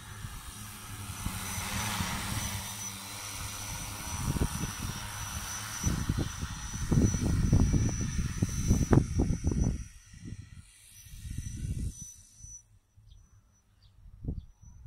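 Multirotor crop-spraying drone (6-litre tank) flying, a steady propeller hum that fades out near the end. Gusty low rumble of wind on the microphone is loudest in the middle.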